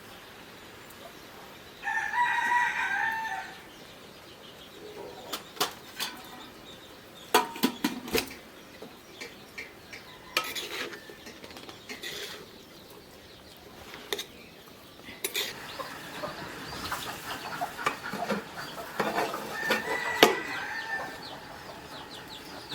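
A rooster crows once, loudly, about two seconds in. Scattered sharp knocks follow, and another pitched call comes near the end.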